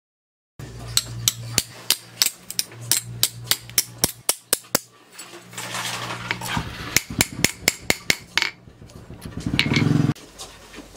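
Hand hammer striking a small steel piece on a steel post anvil: a run of sharp metallic blows, about three a second, with short pauses. A steady low hum runs under the first half, and a short buzz sounds about a second before the end.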